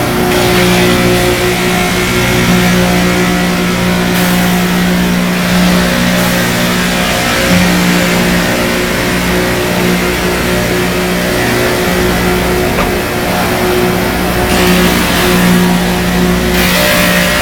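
Harsco Track Technologies rail grinding train at work: its diesel engines running steadily under a loud, continuous hiss of grinding stones on the rail.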